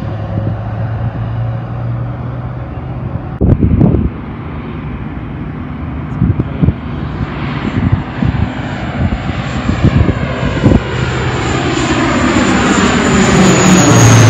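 De Havilland Canada Dash 8-400 (Q400) turboprop on low approach: a steady propeller drone grows louder as it comes in and passes overhead, and a high engine whine drops in pitch near the end. A few low thumps sound in the first half.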